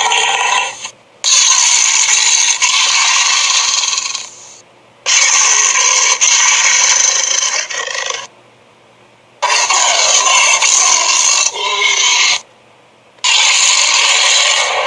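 A run of separate cartoon sound effects from SpongeBob SquarePants: several noisy clips of about three seconds each, every one cut off abruptly, with short silent gaps between them.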